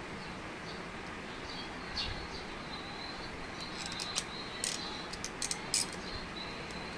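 Several sharp clicks and small knocks of fuel pump and filter parts being handled and fitted together, bunched between about two and six seconds in. Under them run a steady background hiss and a thin, high chirping tone that comes and goes.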